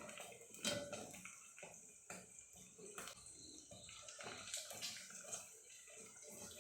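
Faint running and splashing water with scattered light clinks and knocks at irregular moments, as of washing or handling utensils at a kitchen sink.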